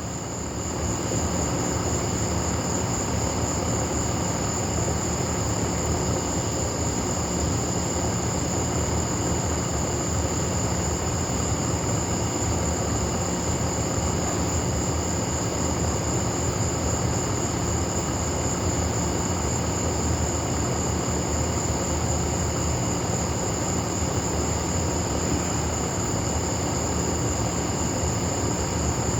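Steady high-pitched night insect chorus over a constant low rumble that swells about a second in and then holds level.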